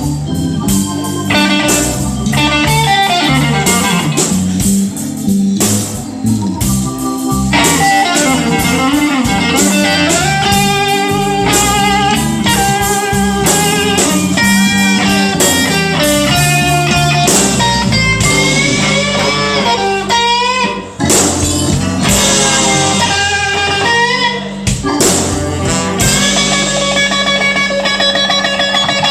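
Electric blues band playing a slow blues live: lead electric guitar soloing with many string bends over bass and drums, with no singing.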